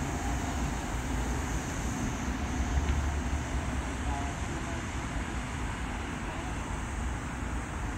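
Steady city traffic rumble with a tram rolling away along its track into the distance, a little louder about three seconds in.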